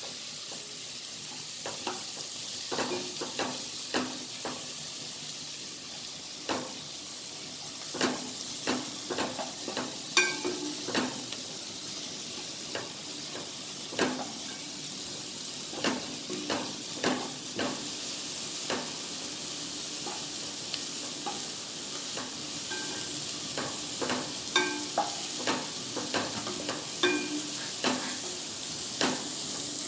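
Chopped shallots sizzling in oil in a nonstick pot, a steady hiss, while a wooden spatula stirs them with irregular scraping and tapping strokes against the pan.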